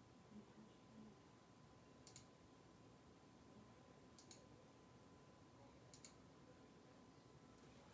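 Near silence: quiet room tone with three faint, brief clicks about two seconds apart and a faint steady high hum.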